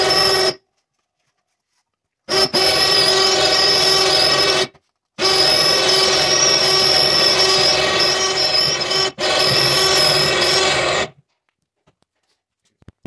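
Electric hoist motor lowering a hanging engine, giving a steady whine with a hum under it. It runs until about half a second in, stops, runs again for about two seconds, then after a short pause runs for about six more seconds and cuts off.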